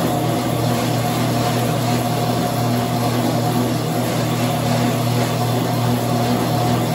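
Motorised treadmill running, a steady machine hum with a constant pitch.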